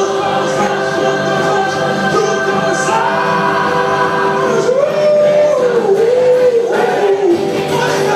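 Live gospel music: a male singer holding long sung notes into a microphone over steady sustained chords from the band, with a choir of voices in the mix.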